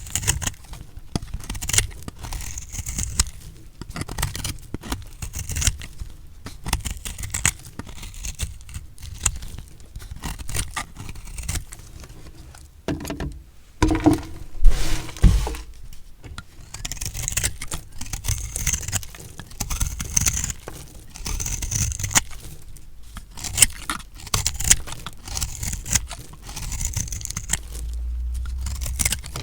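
A knife cutting through a block of recycled soap: a steady run of crisp crunching scrapes and small crackles as the blade goes through, with a heavier knock about halfway through.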